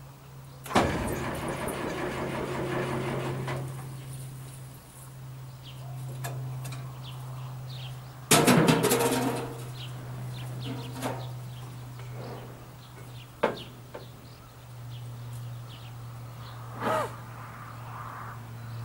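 Bautz combine harvester's engine being cranked on its starter after five years standing, in two attempts without catching: one about a second in lasting some three seconds, another around eight seconds in lasting about a second. A steady low hum runs throughout, with a sharp knock near thirteen seconds.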